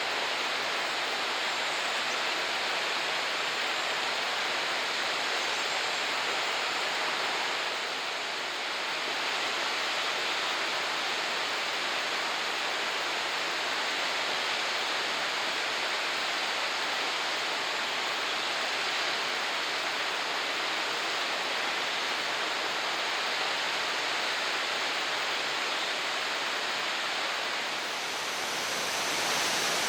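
A tall three-tiered waterfall rushing: a steady, full hiss of falling water. The level dips briefly about eight seconds in and again near the end, after which the sound turns brighter.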